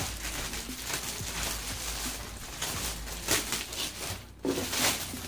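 Clear plastic bag crinkling and rustling as it is tugged and pulled off a loudspeaker cabinet, with a few louder crackles in the second half.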